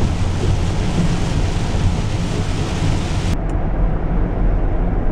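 Steady low road rumble of a van driving, heard from inside the cabin. A higher hiss over it cuts off sharply about three seconds in, leaving only the rumble.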